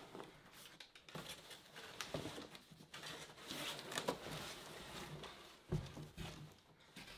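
Cardboard scraping and rustling as a long monitor box is slid up and lifted out of a larger shipping carton, with scattered small knocks and one dull bump near the end.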